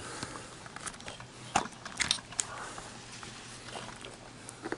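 Scattered clicks and taps of small objects being handled, a few sharper knocks about one and a half to two and a half seconds in, over a faint steady low hum.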